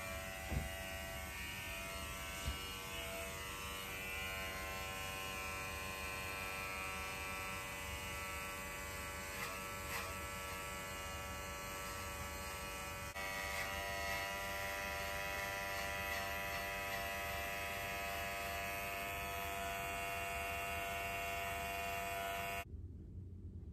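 Steady buzz of electric hair clippers running while trimming a bob wig, with a slight change in tone about halfway through and a sudden stop near the end.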